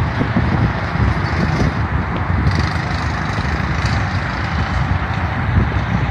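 Small go-kart engine running steadily as the kart drives round the track, mixed with wind rumbling on the microphone.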